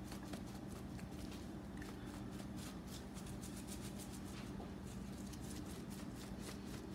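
Large plastic shaker jar of dry seasoning being shaken hard and repeatedly: quick, irregular rattles of salt, pepper and herb granules, several a second, as the slow-pouring blend is shaken out over a raw chicken.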